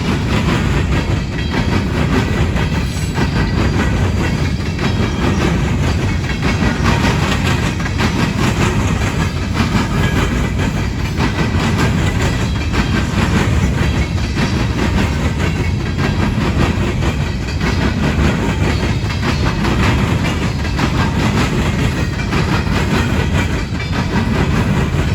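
Coal train's cars rolling past at speed, a steady rumble with the wheels clacking over the rail joints and the diamond crossing.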